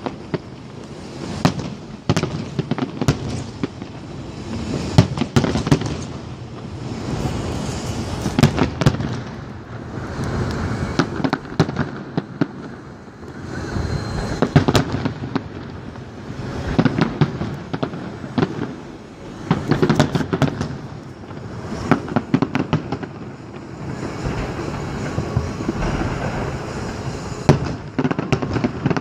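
Aerial firework shells bursting in quick succession: many sharp bangs and crackles over a continuous low rumble that swells and eases every few seconds.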